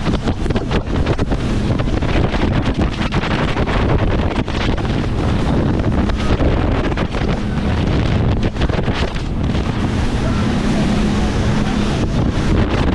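Fishing boat running at speed offshore: a steady engine drone and rushing water under heavy wind buffeting on the microphone.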